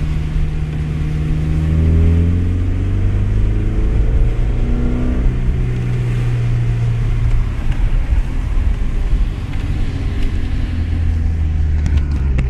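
Ford Sierra's engine and exhaust heard from inside the cabin as a deep, low drone. The revs climb over the first few seconds, then hold fairly steady.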